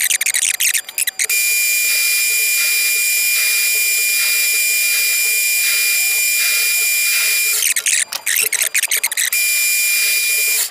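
Metal lathe boring out the centre hole of a chuck backing plate: the boring bar cuts with a steady hiss and a thin, high, steady whine held for several seconds. The sound is choppy and uneven for about the first second and again for a second or two about eight seconds in.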